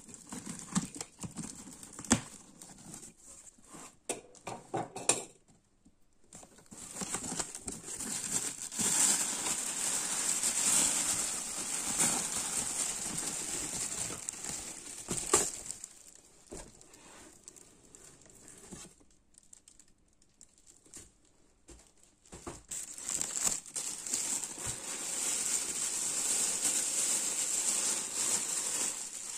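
Black plastic bag crinkling and rustling as it is handled, in two long stretches. Before that come sharp clicks and scrapes from a box cutter slitting packing tape on a cardboard box.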